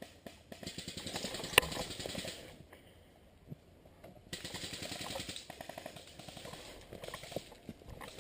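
Airsoft guns firing two long bursts of rapid rattling full-auto shots, with a single sharp crack about one and a half seconds in.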